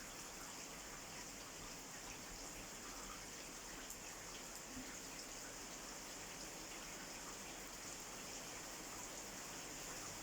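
Steady rain falling, an even hiss with a few single drops ticking now and then.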